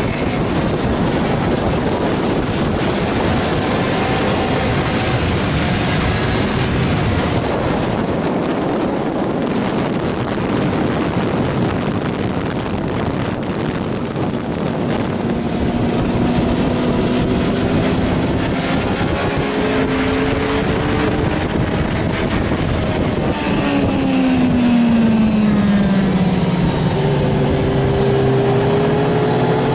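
Suzuki GSR inline-four motorcycle at speed with heavy wind rush over the microphone, the engine note growing clearer in the second half. Near the end the engine pitch falls as the bike slows, then rises steeply as the throttle opens again.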